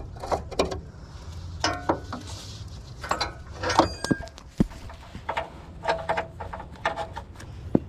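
Scattered knocks, clicks and rubbing sounds, with a short metallic ring about four seconds in, over a low steady hum.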